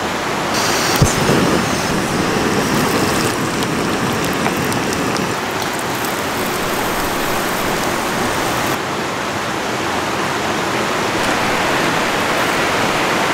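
Breaded brown trout fillets sizzling as they fry in ghee and olive oil in a pan, over a steady rush of river water. A single knock comes about a second in, and the bright sizzle drops away abruptly about nine seconds in.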